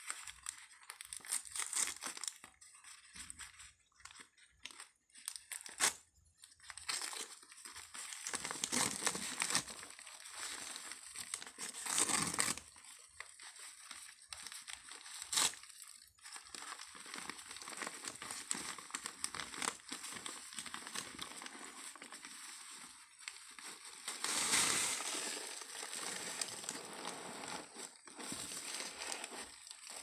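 Newspaper and tissue-paper wrapping crinkling and rustling as it is handled and pulled off potted plants, with a few sharp crackles.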